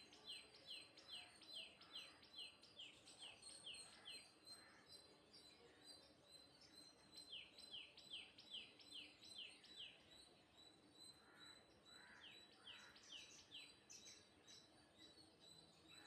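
A bird calling faintly in rapid runs of short, downward-sliding chirps, about three a second, with pauses of a few seconds between runs.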